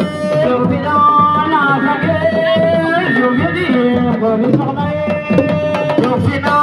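Music: hand drums playing a busy rhythm of sharp strokes under a held, wavering melodic voice.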